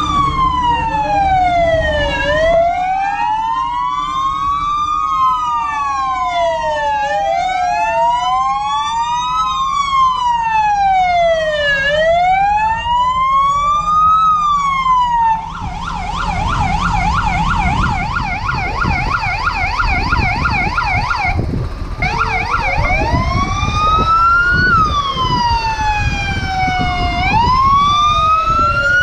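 Fire vehicles' sirens sounding as they drive past: a slow rising-and-falling wail, switching about halfway through to a fast warbling yelp for several seconds, then back to wailing, with two sirens overlapping near the end. Truck engines rumble underneath.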